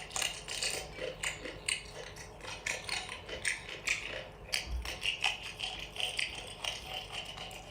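Close-miked crunching and chewing of crunchy seafood: a dense, irregular run of sharp crackly clicks.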